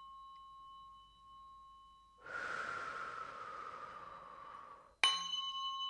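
A tuning fork's ringing tone dies away, then a long breathy exhale lasts about three seconds. Near the end a tuning fork is struck again and rings with several clear, steady high tones.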